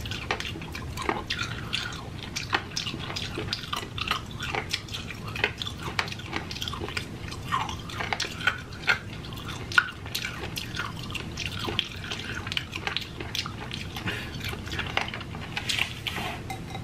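Wet mouth sounds of sucking on a small hard candy cane: lips smacking and tongue clicking in many short, irregular wet clicks.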